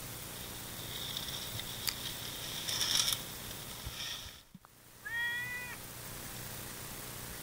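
A single short animal call, like a cat's meow, about five seconds in: one steady pitched cry lasting under a second. Before it, a high hiss with a few sharp clicks.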